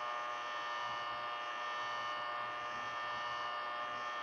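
Electric heat gun running with a steady hum, its fan blowing hot air to soften the adhesive under a smartphone screen so it can be pried off.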